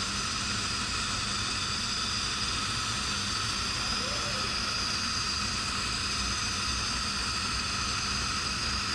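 Epilog CO2 laser cutter running while it cuts acrylic sheet: a steady, even hiss and whir of air and fans that holds unchanged throughout.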